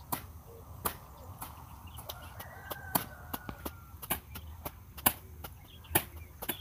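Grass slashers swung at short grass, giving sharp swishing chops about twice a second at an uneven pace. A faint, long, rising-and-falling bird call is heard about two seconds in.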